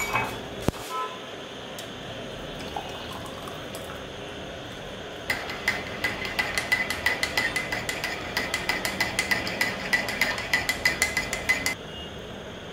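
Tea poured briefly from a steel saucepan through a strainer into a ceramic mug, then a spoon stirring in the mug: quick clinks against the sides, about five or six a second, each with a light ring, starting about five seconds in and stopping abruptly near the end.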